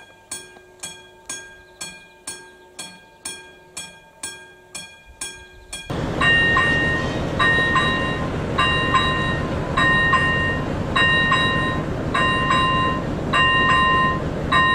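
Level-crossing warning bell striking about three times every two seconds. About six seconds in it gives way to another crossing's bell, ringing at a different pitch at the same pace, over a loud steady rushing noise.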